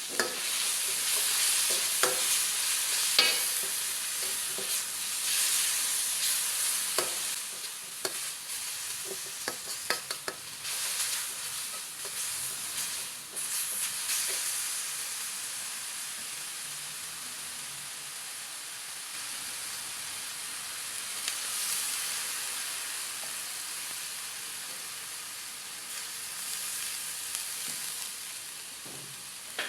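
Food stir-frying in a hot pan: a steady sizzle, with scattered clicks and knocks of a utensil stirring and scraping through the first half, easing a little toward the end.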